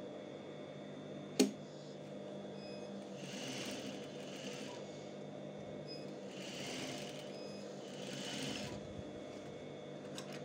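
Industrial lockstitch sewing machine stitching a seam in three short runs, about three, six and eight seconds in, over a steady motor hum. A single sharp click comes about a second and a half in.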